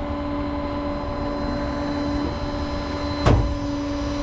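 A vehicle engine idles with a steady hum, and a single sharp clunk comes about three seconds in.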